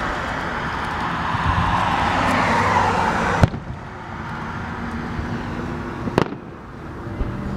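Aerial fireworks going off: a loud, dense noisy hiss cut off by a sharp bang about three and a half seconds in, then a second sharp bang about six seconds in.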